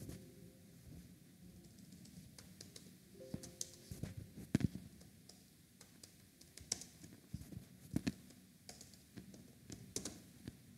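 Slow, irregular keystrokes on a computer keyboard: scattered single clicks, some louder than others.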